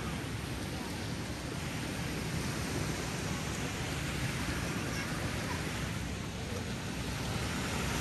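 Gentle ocean waves breaking and washing on a sandy beach, a steady hiss of surf.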